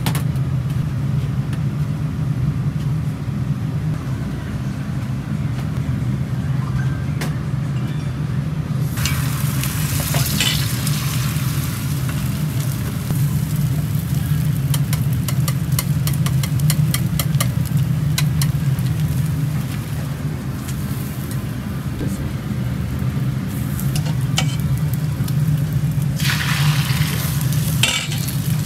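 Beaten egg sizzling in a rectangular tamagoyaki pan over a gas flame, the sizzle starting about nine seconds in and flaring again near the end as more egg goes in. Long chopsticks click against the pan as the egg is stirred, over a steady low hum.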